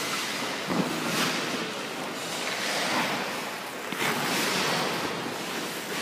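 Ice hockey goalie's skate blades and leg pads scraping and sliding on rink ice: a run of hissing swishes as the goalie drops into the butterfly and pushes back up to stance.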